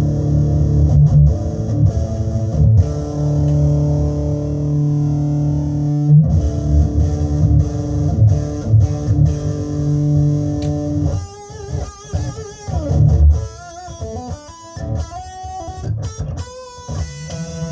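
Electric guitar played through an MXR EVH 5150 Overdrive pedal: loud overdriven low chords, then about eleven seconds in, a quieter single-note lead line with bends and vibrato.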